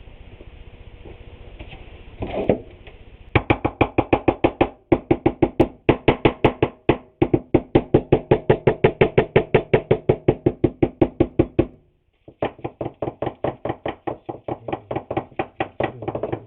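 Rapid, regular knocking strokes at about five a second, starting a few seconds in, stopping briefly near the end and then going on.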